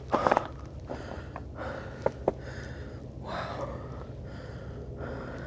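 A hiker breathing hard in a steady rhythm of hissy breaths, with a few sharp clicks near the start and two more about two seconds in.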